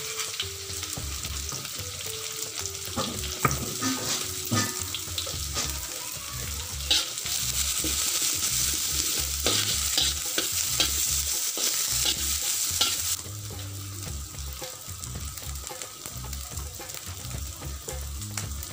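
Pounded garlic, dried anchovies, chilli and sliced onion sizzling as they fry in hot oil in a wok, with now and then a sharp tick or scrape of a metal spatula against the pan. The sizzle grows quieter about two thirds of the way through.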